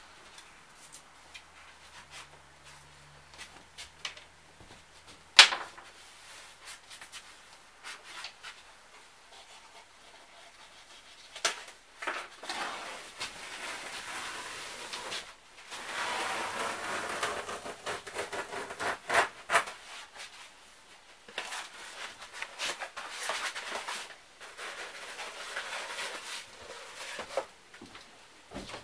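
Sheet linoleum being pulled and torn up from the floor by hand: irregular scraping, rustling and cracking, heavier in the second half, with one sharp knock about five seconds in.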